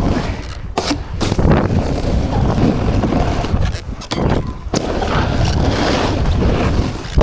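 Skis sliding and scraping over snow at speed, with wind rushing over the camera microphone, as a loud steady rush broken by a few brief dips.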